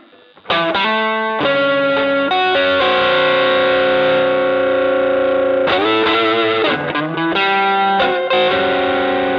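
Electric guitar played through an MXR Dynacomp compressor pedal, notes struck and held with long, even sustain. After a brief pause near the start come short picked phrases and bends, with a wavering bent note about six seconds in.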